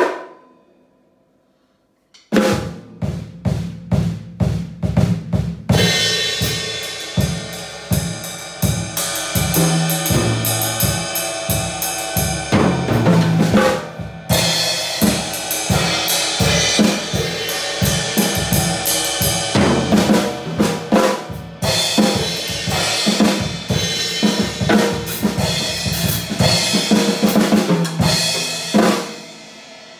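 Drum kit being played. After a second or two of quiet, separate drum hits start, then build into a full groove of snare and bass drum under washing cymbals, with a couple of brief breaks. The playing stops near the end, leaving the kit ringing.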